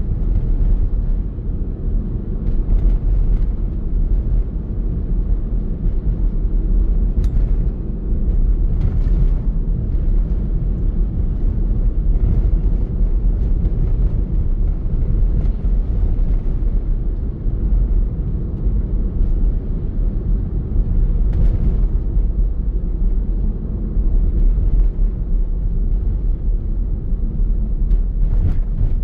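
A car driving on a road: a steady low rumble of tyres and engine, with a few faint ticks.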